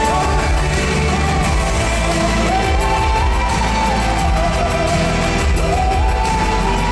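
A woman singing a live pop ballad over backing music, holding long notes that step up and down, amplified through an arena's loudspeakers.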